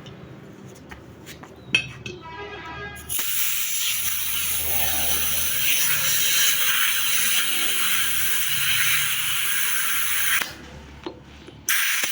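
Compressed air hissing steadily for about seven seconds, starting a few seconds in, cutting off briefly and starting again near the end.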